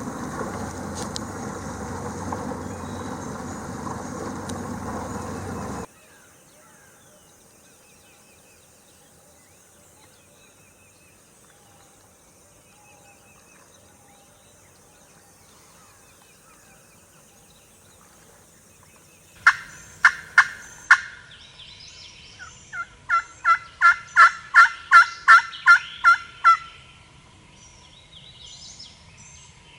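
A loud steady noise cuts off suddenly about six seconds in, leaving quiet with faint bird chirps. Near the end come sharp turkey calls: about five evenly spaced notes, a short pause, then a run of about a dozen that grow louder.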